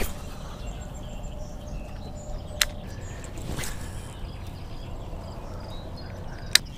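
Outdoor ambience of birds chirping and insects, over a low rumble. Two sharp clicks come about two and a half seconds in and again near the end.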